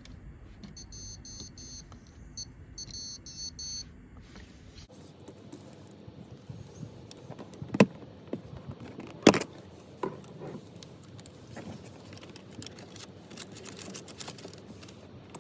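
Plastic clicks and knocks of a headlight switch being handled and fitted into a car dashboard, with two sharp clicks about eight and nine seconds in. Faint high-pitched beeping in the first few seconds.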